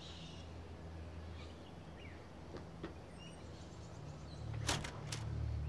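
Quiet outdoor ambience with a few faint bird chirps over a low steady hum. Near the end a low drone swells louder and two quick sharp sounds come half a second apart.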